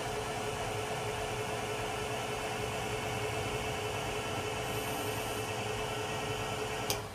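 Milling machine table power feed running steadily with a whine, traversing the table along the X-axis. It shuts off with a click near the end.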